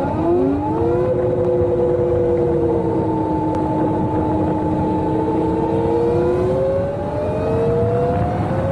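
Electric motorcycle's QS138 90H motor and Fardriver controller whining under hard acceleration, over wind and road noise. The whine rises in pitch through the first second, holds and sags slightly through the middle, then climbs again near the end.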